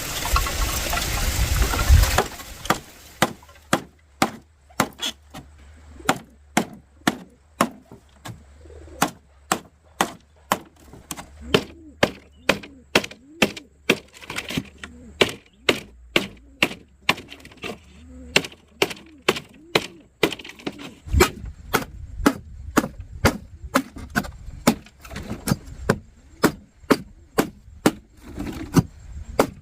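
A blade chopping into wood with steady, sharp blows, about two a second. A loud rushing noise comes first and stops about two seconds in, when the chopping begins.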